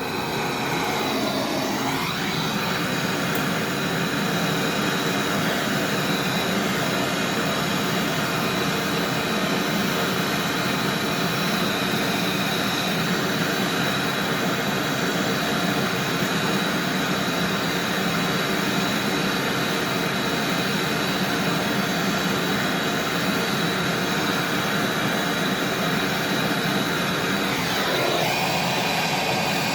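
A steady, loud rushing roar of gas at the fridge's refrigerant pipework, holding even throughout, as from a brazing torch or a flushing line.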